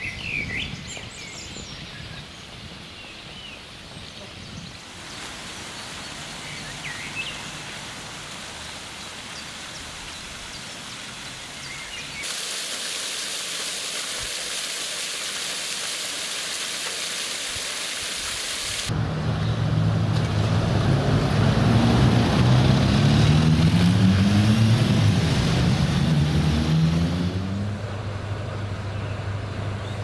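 A few birds chirping, then the steady hiss of a fountain's water jets splashing into a stone basin. From about two-thirds of the way in, an engine runs loudly, its pitch rising several times before it settles to a steady low hum.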